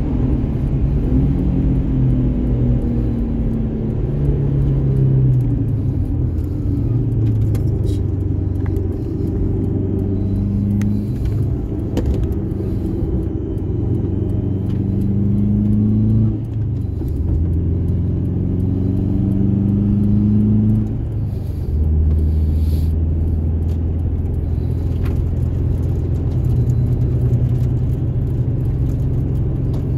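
Subaru Impreza WRX STi's turbocharged flat-four engine pulling hard on a race track, its pitch climbing through the revs and dropping sharply at two gear changes. Near the end it runs at a steady pitch.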